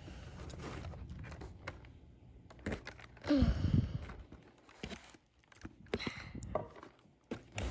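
Scattered light clicks and taps of hands and scissors working at a plastic doll box, trying to snip the rubber band that ties the doll to the packaging, with a short low vocal grunt about three and a half seconds in.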